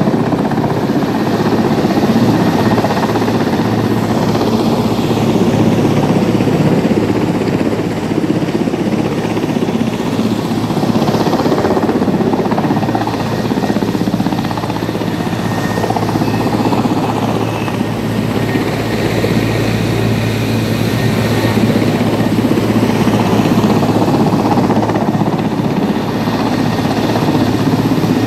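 Army transport helicopter hovering low, its rotor and turbine engines running steadily with a constant low throb under a rushing wash of air.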